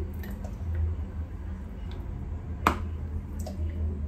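Mayonnaise being scooped out of a glass jar with a utensil into a plastic mixing bowl, with faint ticks and one sharp click of the utensil on the jar about two and a half seconds in, over a steady low hum.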